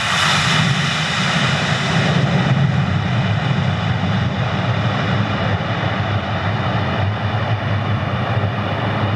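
Steady, loud engine drone, with several held higher tones over a low rumble.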